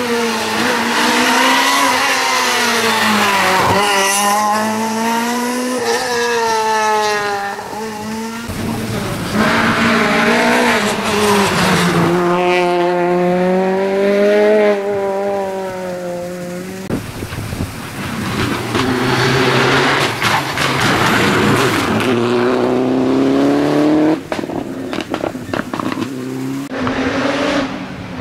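Rally car engine revving hard up through the gears and lifting off for the bends, its pitch climbing and dropping again and again as it passes and heads away.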